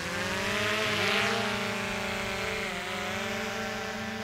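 DJI Mavic 2 Pro quadcopter's propellers spinning up on auto takeoff, a whine rising steeply in pitch for about the first second as it lifts off, then settling into a steady hover hum with a brief dip in pitch about three seconds in.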